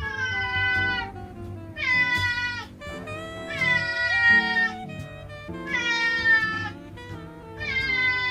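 A domestic cat meowing over and over, about five drawn-out meows of roughly a second each, insistently appealing for something. Background music runs underneath.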